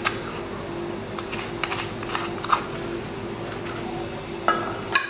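Scattered light clicks and taps of a small container handled over a steel tray as ingredients are tipped onto flour, over a steady background hum.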